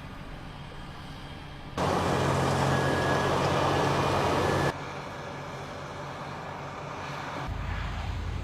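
Heavy farm vehicle engines running across several edited shots, with the sound jumping abruptly about two seconds in, again near five seconds and again near the end. The loudest stretch is a dense rushing engine noise in the middle.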